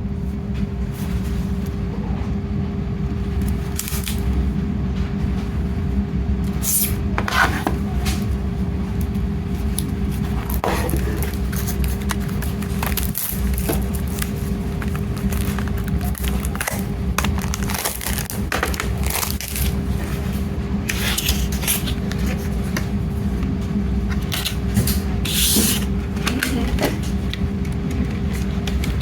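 Hands handling a CD and Blu-ray package, with scattered scrapes and rustles of plastic and card over a steady room hum.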